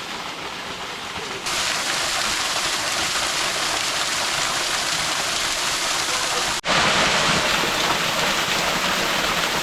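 Waterfall pouring into a pool: a steady rush of falling water that jumps louder about a second and a half in, and again after a brief break about two-thirds of the way through.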